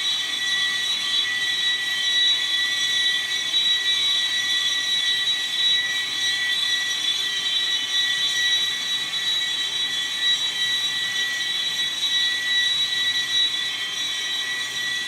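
Boring machine running, its long boring bar turning and cutting inside a large engine cylinder, with a steady high-pitched whine.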